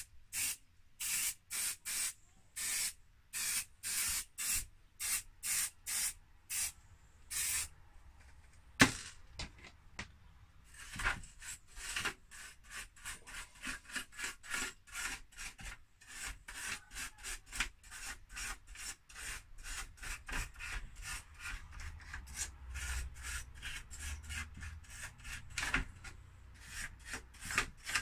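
A small brush scrubbing a computer circuit board in short repeated strokes, about two a second at first. There is a sharp click about nine seconds in, then quicker, fainter strokes.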